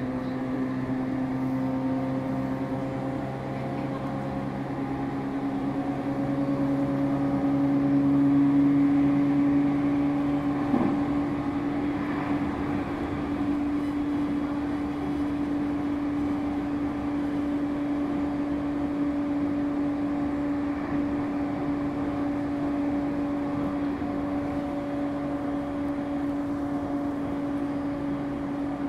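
Running sound inside a JR E231-series electric train at speed: a steady electric traction-motor whine with its pitch creeping slightly upward, over the rumble of wheels on rail.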